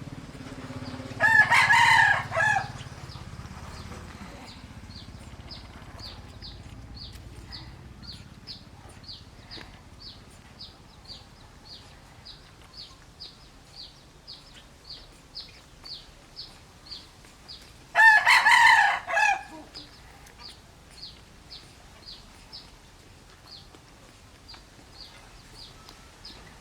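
A rooster crowing twice: once just after the start and again about two-thirds of the way through, each crow lasting a little over a second. Under it, a faint high chirp repeats about twice a second.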